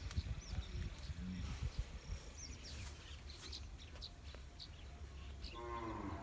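Small birds chirping in short, repeated high calls over a low, steady rumble. Near the end a louder pitched animal call begins.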